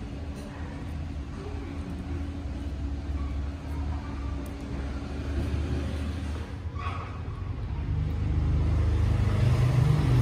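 A low rumble that grows louder in the last couple of seconds.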